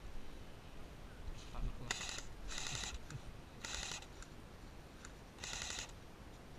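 Airsoft gun firing four short full-auto bursts of rapid clicks, the first about two seconds in and the last near the end.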